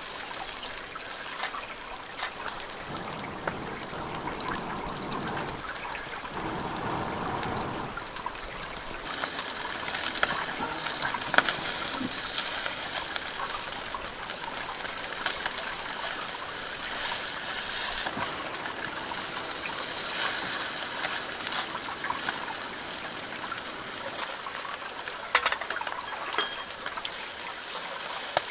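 Shallow stream trickling and running steadily over rocks, with a few light metallic clicks of a spatula and tongs on a stove's grill grate.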